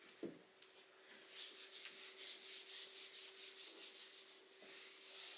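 A pen scribbling back and forth, shading in a drawing, at about four to five quick strokes a second for around three seconds, with a softer scratch near the end.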